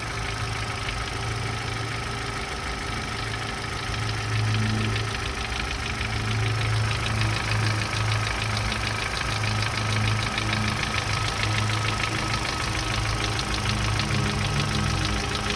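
Opel Z14XEP 1.4-litre four-cylinder petrol engine running with a fast, even knocking clatter, a little louder from about four seconds in.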